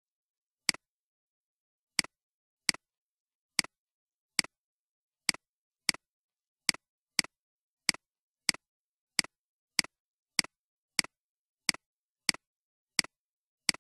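Computer mouse button clicking repeatedly, about 19 short, sharp clicks at an uneven pace of one or two a second, as the 'Add' button is clicked again and again.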